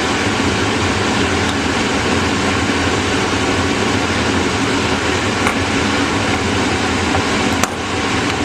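Steady, loud fan-like air noise, with a few faint clicks and one sharp click near the end.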